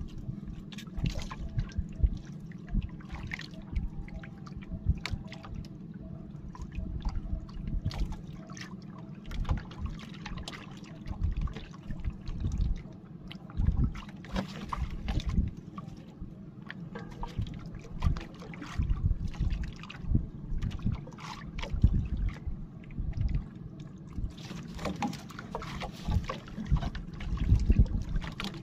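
Sea water lapping and sloshing against the hull of a small fishing boat (bangka), over a steady low rumble, with irregular knocks and splashes.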